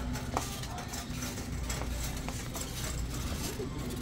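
Shopping cart rolling over a store floor: a steady low rumble from the wheels with a few scattered clicks and rattles.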